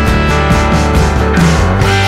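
Background rock music with guitars and a steady beat; the bass changes near the end.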